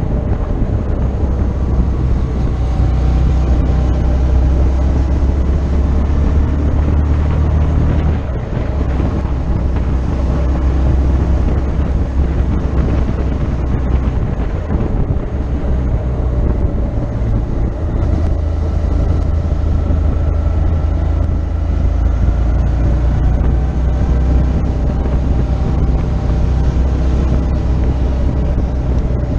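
Motorcycle engine running at road speed, heard from on board, with wind rushing over the microphone. The engine note eases off briefly about eight seconds in, then pulls steadily again.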